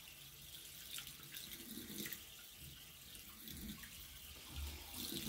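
Faint steady hiss of a bathroom tap running, with soft wet sounds of hands rubbing cleansing gel over the face.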